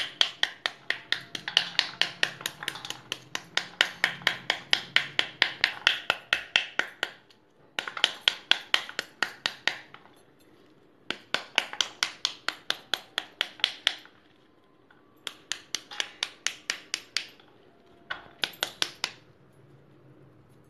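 Quick, sharp taps on the back of a pomegranate half, about five a second, knocking the arils out into a steel bowl. The taps come in several runs with short pauses between them.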